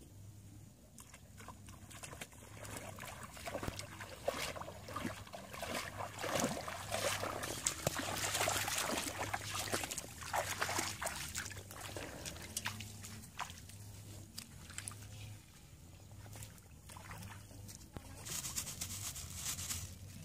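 Footsteps wading and splashing through shallow paddy water and wet grass, with sloshing, trickling and scattered crackling rustles, loudest in the middle.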